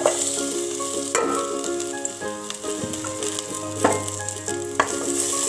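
Lightly crushed garlic cloves dropped into hot sesame oil in a metal pan, sizzling as they fry, with a few sharp knocks.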